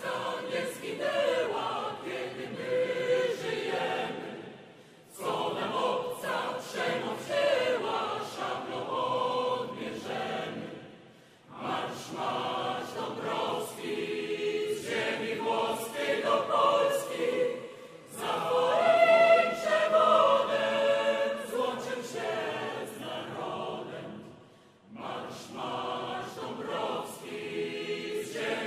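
Mixed choir of women's and men's voices singing together, in long phrases with brief pauses between them.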